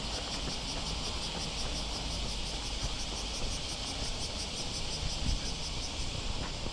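Insects chirring in a fast, even pulsing rhythm that weakens near the end, over a steady low rumble of wind and road traffic.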